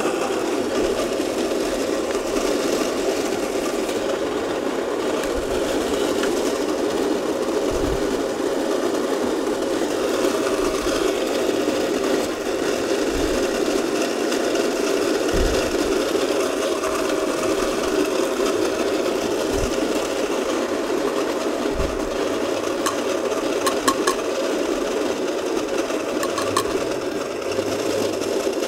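Baratza Encore conical-burr coffee grinder running steadily, grinding 22 g of coffee at setting 18, a medium-coarse grind.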